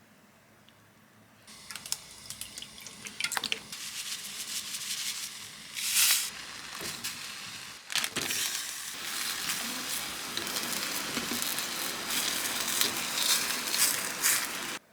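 Cooking in a pan: food sizzling with a steady hiss, mixed with clicks and scrapes of a utensil, stopping abruptly near the end.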